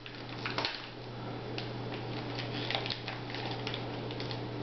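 Wrapping paper crinkling and tearing as a small gift is unwrapped by hand: a run of short, irregular crackles and rustles.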